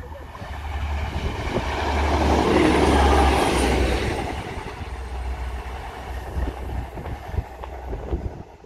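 Class 175 diesel multiple unit passing at speed, its engine and wheel noise swelling to loudest about three seconds in, then fading as it draws away.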